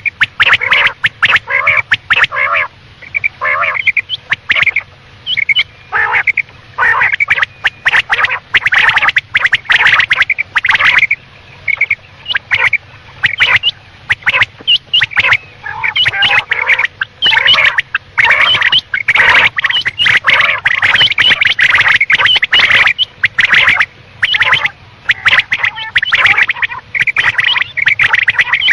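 Quail calling: a fast, nearly unbroken run of short, repeated calls, several overlapping, with brief pauses every second or two.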